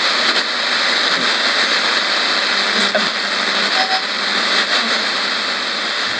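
Tabletop radio hissing with between-station static as its tuning dial is swept slowly by hand across the band, with a few faint clicks and brief blips of signal breaking through the steady hiss.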